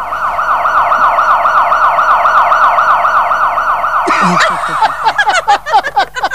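Electronic emergency siren wailing in fast, even sweeps, several times a second, which cuts off abruptly about four seconds in. Short bursts of laughter follow.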